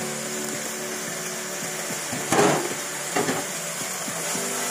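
Wooden spatula scraping and knocking against a nonstick wok while pieces of chicken and pork are stirred. The loudest scrape comes a little past two seconds in, with a shorter one about a second later.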